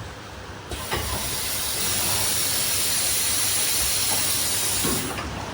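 Automatic CNC bottle screen printing machine running, with a loud, even hiss that starts sharply about three-quarters of a second in and cuts off after about four seconds, over a low mechanical hum.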